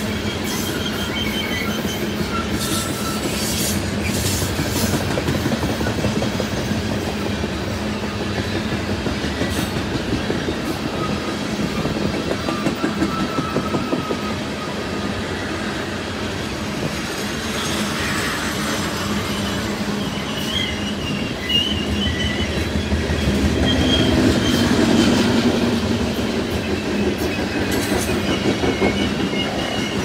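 Loaded coal gondola cars of a freight train rolling past close by. Steel wheels run steadily on the rails, clicking over rail joints, with thin high wheel squeal coming and going. The sound swells briefly about two-thirds of the way through.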